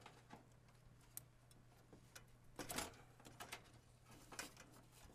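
Faint, scattered light clicks and knocks from a computer case's side panel being worked loose, with a few slightly louder knocks midway, over a steady low hum.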